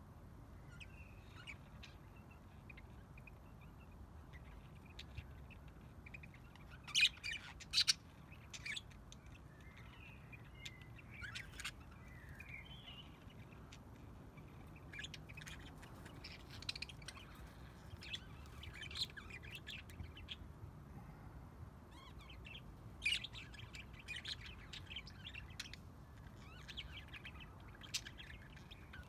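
A flock of budgerigars chirping and warbling, with short calls scattered all through and a few louder, sharper calls about seven seconds in and again around twenty-three seconds.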